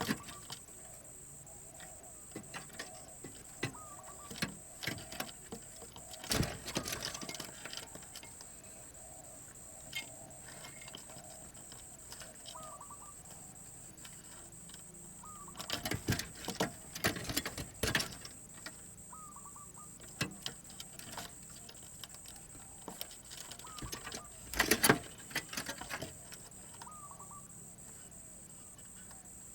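Scattered clicks, knocks and rattles in short clusters, the loudest about six seconds in, around the middle and near the end. Faint short bird calls repeat in the second half over a steady high hiss.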